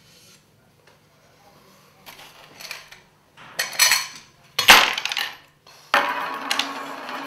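A small round metal tin is handled and opened and a few coins are tipped out onto a tabletop. There are metallic clinks, a loud clatter a little before the halfway point, then a longer rattle of coins and tin near the end.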